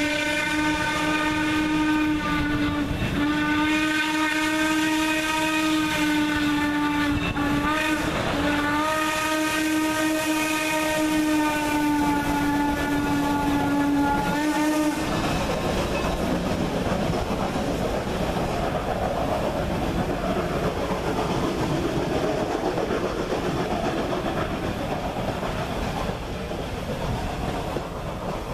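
The steam whistle of Norfolk & Western 4-8-0 locomotive No. 475 blowing the grade-crossing signal: two long blasts, one short, and a last long blast that ends about halfway through. After it, the train's passenger coaches rolling past on the rails.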